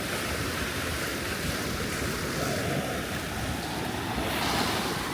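Ocean surf washing onto the beach as a steady rush, with wind buffeting the microphone.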